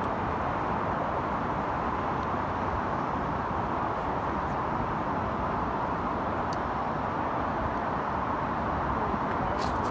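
Steady hum of road traffic, with a few faint clicks.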